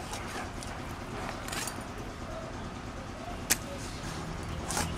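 Chital fish being cut and its belly pieces handled over a steel colander: a few soft scraping strokes and one sharp click about three and a half seconds in, over a low steady background noise.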